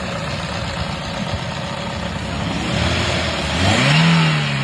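Toyota 1NZ inline-four engine idling, then revved once near the end, its pitch rising and settling back. It is running after a new cylinder 1 ignition coil was fitted to cure a P0301 misfire, which the mechanic says made it run fine.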